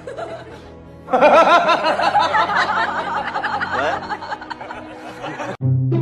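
Laughter over background music. The laughter starts about a second in and cuts off sharply near the end.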